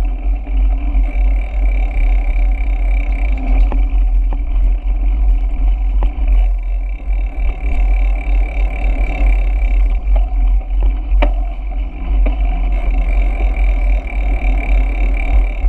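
Wind buffeting the microphone of a camera on a moving bicycle: a steady heavy low rumble, with rolling road noise and a few sharp clicks.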